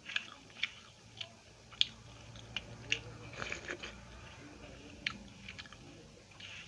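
Close-miked mouth eating: chewing and biting food, with a string of sharp, wet clicks and smacks at irregular intervals.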